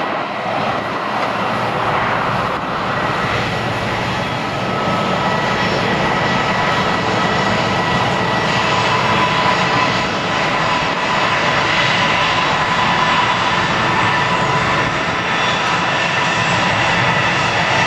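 An Airbus A320-family airliner's twin turbofan engines at takeoff thrust as it lifts off and climbs away: a steady jet roar with a few whining tones that stand out more in the second half.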